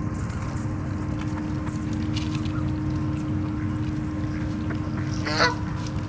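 Canada geese honking: a few faint calls, then one loud honk about five seconds in, over a steady low rumble.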